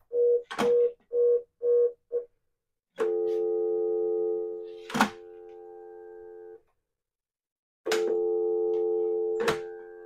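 Dial tone coming from the handset earpieces of Western Electric single-slot payphones as they are picked up and hung up in turn: a quick run of about five short beeps in the first two seconds, then two steady tones of about three seconds each, with sharp clicks of handsets and hookswitches. The steady dial tone is the sign that the payphones are back in dial-tone-first mode.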